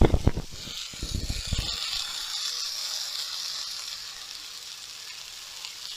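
Köfte skewers frying and sizzling, a steady hiss, with a few low knocks in the first second or two.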